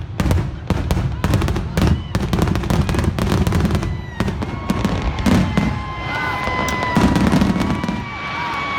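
Fireworks display going off: dense rapid crackling and cracks over deep booms, with a few long whistling tones in the second half.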